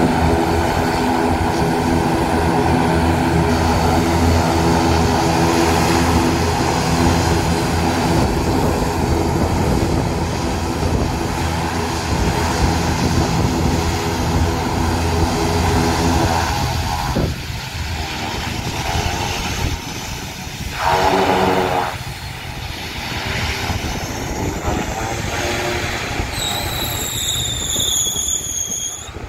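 ATR 72 twin turboprop taxiing: a steady propeller drone with a stack of even tones, dropping off after about sixteen seconds as the aircraft moves away down the runway.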